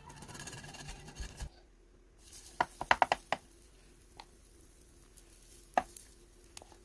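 Silicone brush rubbing oil across the nonstick plates of a waffle iron, then sharp clicks and taps of a wooden spoon against the batter cup and the waffle plates: a quick cluster about three seconds in and single taps after it.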